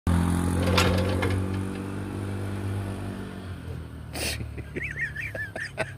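Asphalt cutter's small petrol engine running steadily, then dying away about three and a half seconds in. It is a hard-starting engine that needed around twenty pulls before it would run.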